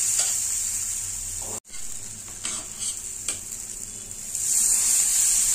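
Pancake batter sizzling in hot oil on a tawa while a metal spatula spreads it, with a few light scrapes of the spatula. The sound cuts out for an instant about a second and a half in.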